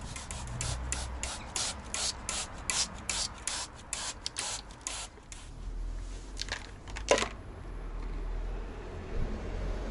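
Quick scratchy rubbing strokes, about three a second, that stop a little past halfway and are followed by two more strokes.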